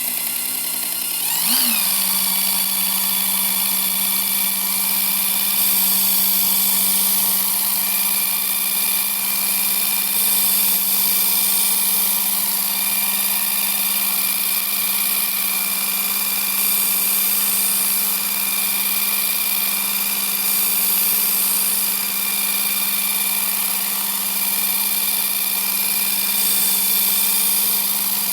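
Work Sharp Ken Onion Edition electric belt sharpener with the blade grinding attachment, its motor running with a steady whine. Its pitch glides briefly about a second and a half in, then holds. A high hiss from the abrasive belt swells and fades throughout.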